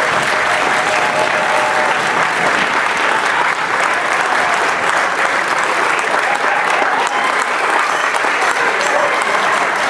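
Audience applauding steadily throughout.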